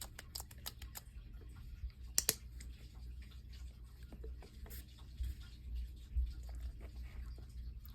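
Light, scattered clicks and taps of utensils and containers being handled while making slime, with one sharper click about two seconds in.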